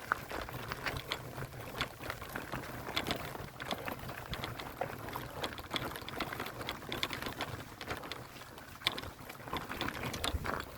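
Walking sounds: footsteps with light clicking and rustling, an uneven run of small clicks through the whole stretch.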